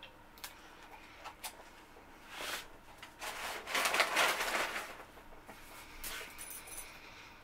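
Chewing and small mouth clicks from a man eating a mouthful of fries, with a louder burst of rustling about three to five seconds in as he reaches beside him.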